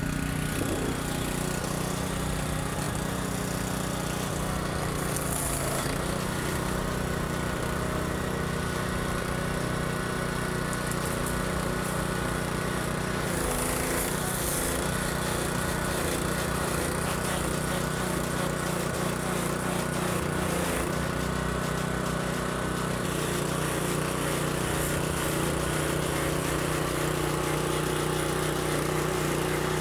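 Kärcher G 2200 gas pressure washer's small four-stroke OHV engine running steadily, with the hiss of the high-pressure water jet from the spray wand.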